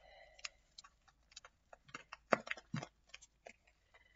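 Irregular small clicks and taps of a small box and its packing being handled and opened to take out a key, with two louder knocks about two and a half seconds in.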